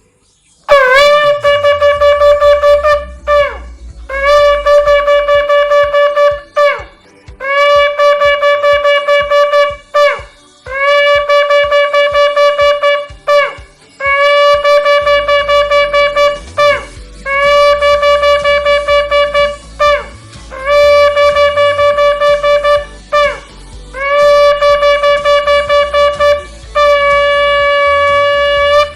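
A ram's-horn shofar blown in a series of about nine long blasts with short breaks between them. Most blasts scoop up into the note and drop in pitch as they end; the last one is held level.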